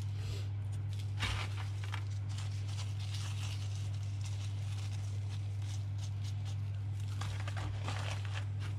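Hands rummaging through coarse salt and stiff salt-cured squid in a roasting tin, giving a gritty rustle about a second in and again near the end, over a steady low hum.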